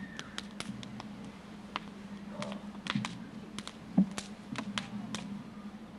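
Scattered irregular light clicks and taps, with one louder knock about four seconds in, over a steady low hum.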